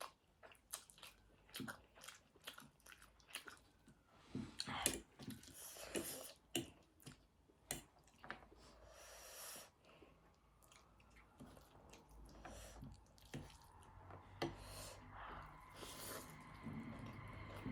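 Soft close-miked chewing of a ramen-noodle meal: irregular wet mouth smacks and clicks of a person eating.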